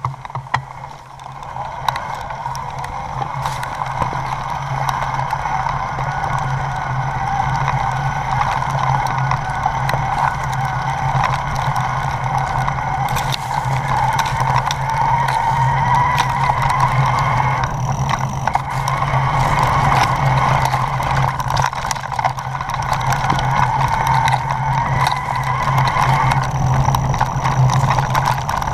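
Mountain bike rolling fast down a rocky dirt singletrack: a continuous buzzing rush with a steady low hum underneath, and many scattered clicks and knocks from the tyres and bike rattling over stones.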